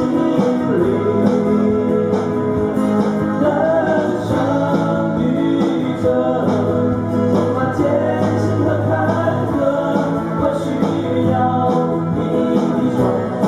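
Two amplified silent guitars playing a song together, with a man singing into a microphone over them.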